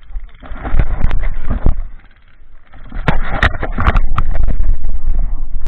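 Loud rustling, rumbling and scattered knocks of handling noise right on an action camera's microphone, in two loud stretches about a second in and from about three seconds in.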